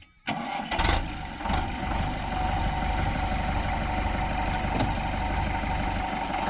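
Sonalika tractor diesel engine running steadily at a low, even pace, cutting in just after the start, with a couple of sharp knocks in the first two seconds.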